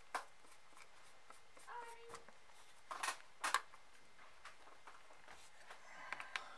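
Sharp clicks and knocks of hands and a screwdriver on a Sennheiser HD598 headphone's plastic earcup while its screws are being taken out. There is one click at the start and a louder pair about three seconds in.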